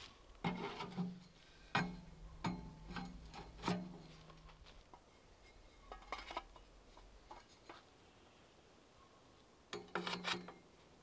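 A series of irregular knocks and clunks, several with a short low ring after them, then a quick cluster of knocks near the end: hard objects being handled and knocked together.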